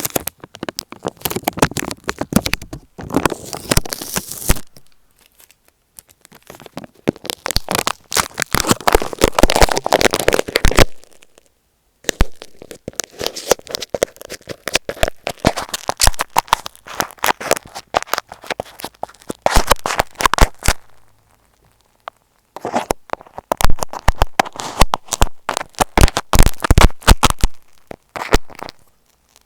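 Tape stuck over an Apple EarPods microphone being rubbed and poked right on the mic, giving loud, dense crackling and scratching. It comes in runs of several seconds, with short pauses between them.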